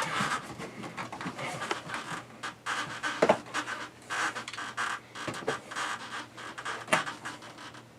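Plastic trim scraping and rubbing in irregular strokes, with a few sharp knocks, as a tight-fitting Fantastic Fan vent interior garnish is worked into the ceiling opening.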